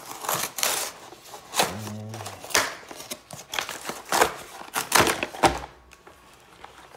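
Cardboard box being torn apart by hand: a run of loud ripping and tearing strokes, quieter near the end.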